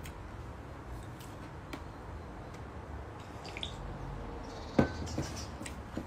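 Steady low background hum, with a few faint high chirps in the middle and one sharp click about five seconds in.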